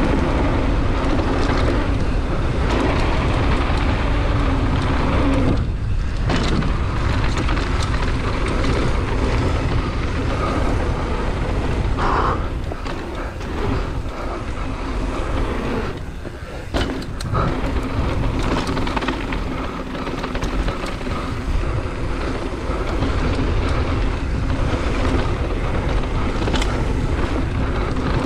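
Wind rushing over the camera microphone and tyres rolling fast on a hard-packed dirt trail, with the GT Fury downhill mountain bike rattling over the bumps. The noise is loud and steady, easing briefly a few times.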